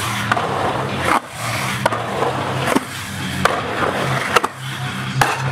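Skateboard wheels rolling around a concrete pool bowl: a steady low rumble with sharp clacks about once a second.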